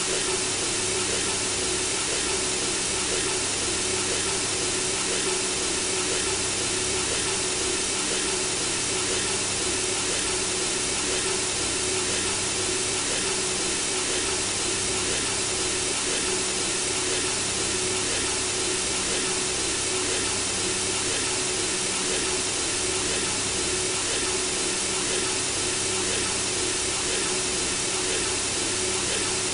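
Synthesizer-made white noise for soothing a baby to sleep: an even, unbroken hiss with a low steady tone beneath it.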